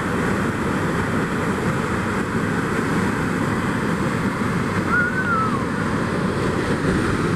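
Sol Duc Falls, white water plunging into a narrow rock gorge: a steady, loud rush of falling water.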